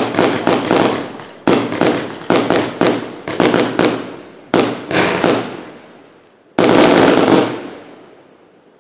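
Alessi 1113 S 150-shot fireworks cake firing its last shots: a string of sharp bursts, each trailing off in crackles, then a loud, dense final volley about six and a half seconds in that fades out.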